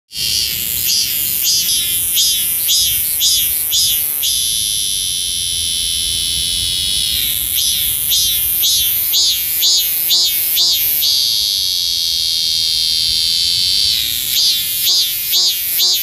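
A male cicada (Korean maemi) singing loudly at close range, its calling song to attract females. It alternates runs of quick rising-and-falling pulses, about three a second, with steady high drones lasting a few seconds each.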